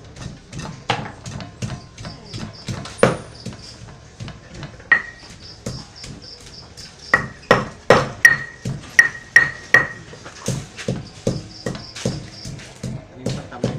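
Irregular knocks and clatter from preparing green papaya salad by hand, a few taps a second, several of them leaving a short metallic ring. Crickets chirp faintly underneath.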